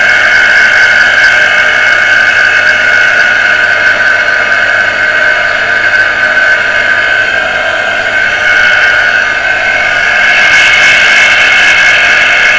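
Water pressure booster pump's electric motor running steadily with a loud high-pitched whine, the noise of a worn bearing.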